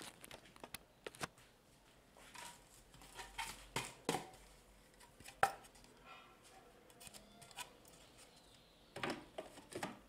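Irregular clicks, taps and knocks of objects being handled, in clusters with short scrapes between them. The loudest knock comes about five and a half seconds in, and no motor is running.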